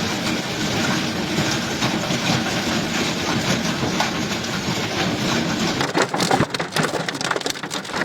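Hail pelting a hard surface: a loud, dense clatter of impacts, breaking into sharper, more separate hits from about six seconds in.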